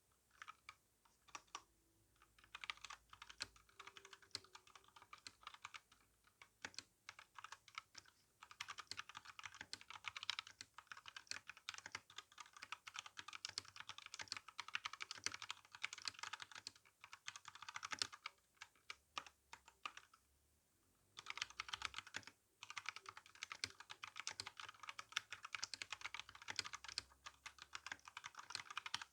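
Typing on an RK61 mechanical keyboard with brown tactile switches and GSA keycaps: fast, continuous runs of keystrokes, a few scattered presses at first, with a brief pause about twenty seconds in.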